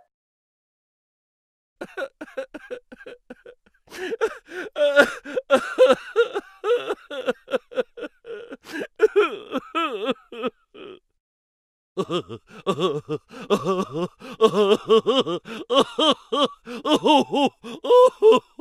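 Comedy sound-effect voice in rapid, choppy pulses like laughing or gasping, starting about two seconds in, breaking off for a second near eleven seconds, then starting again.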